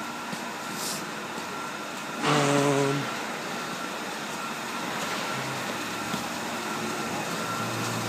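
Steady mechanical background noise of a large work building, with a loud, held, pitched sound lasting under a second about two seconds in.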